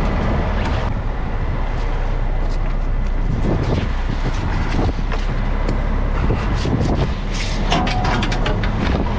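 Fishing boat's engine running steadily with a low drone, with a few sharp clicks and knocks of deck gear near the end.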